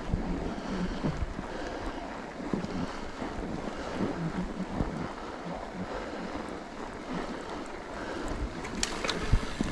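Mountain bike tyres crunching through fresh snow while riding, under a steady rush of wind on the microphone. A few sharp clicks come near the end.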